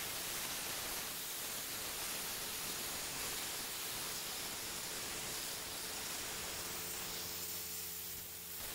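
High-pressure washer spraying: a steady, even hiss of water jet with a faint machine hum underneath.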